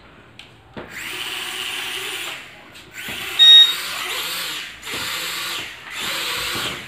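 HX750 toy quadcopter's small propellers whirring as it lifts off and flies, the whir rising and falling in three surges. A short high beep sounds about three and a half seconds in.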